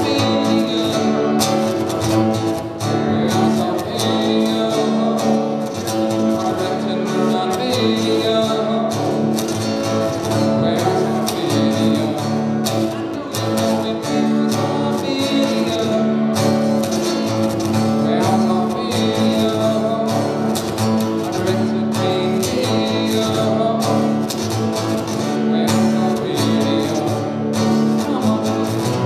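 Acoustic guitar strummed in a steady rhythm, with the chords changing every second or two.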